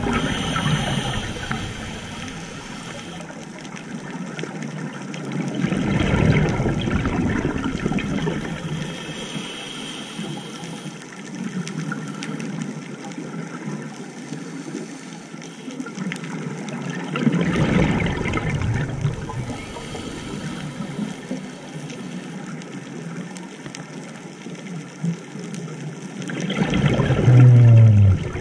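Scuba diver breathing through a regulator underwater: surges of exhaled bubbles about every ten seconds, the loudest near the end, with a quieter watery hiss between.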